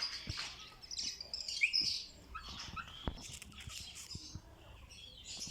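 Birds chirping in short twittering calls, with a few light clicks and knocks.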